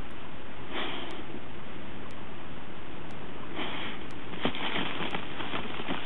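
Lurcher sniffing and blowing hard into a rabbit hole, with strong bursts of breath about a second in and again near four seconds. From about four and a half seconds, quick scratchy clicks of its paws digging at the earth.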